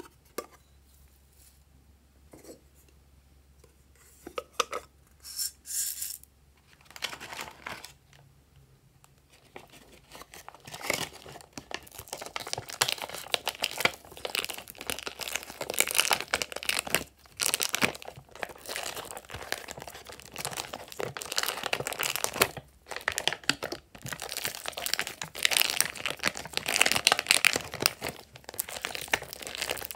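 Slime being handled and squeezed by hand, with a few separate sticky crinkles over the first several seconds. From about ten seconds in comes a dense, continuous run of small crackles and pops as the slime is pressed and worked between the fingers.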